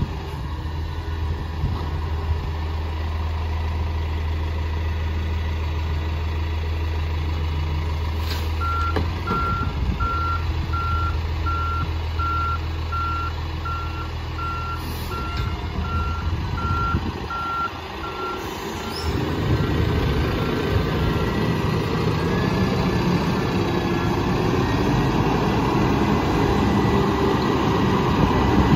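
Mack MRU garbage truck with a McNeilus rear-loader body: its natural-gas engine runs with a steady low hum, then its reversing alarm starts beeping about once a second roughly a third of the way in. The beeps fade out past the midpoint as the engine gets louder and the truck pulls away.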